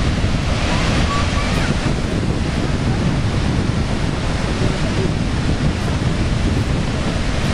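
Steady roar of Niagara's Horseshoe Falls and the churning water below it, with wind buffeting the camcorder microphone.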